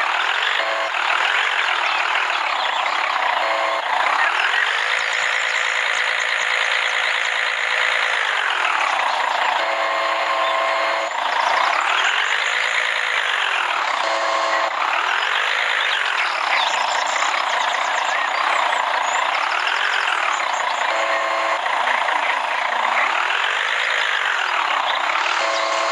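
A small crane's motor whining, its pitch rising and falling again and again as it speeds up and slows down, with a steady hum in the pauses between runs.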